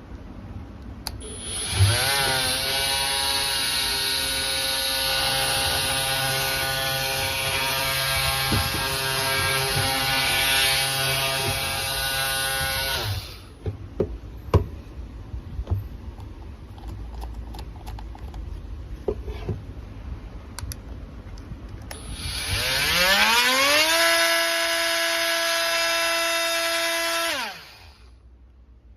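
Bosch GMF18V-28 18V cordless oscillating multi-tool run as a test, twice. The first run spins up quickly to a steady high whine for about eleven seconds, then stops. After a few small clicks, the second run ramps up more gradually, holds steady, and winds down to a stop near the end.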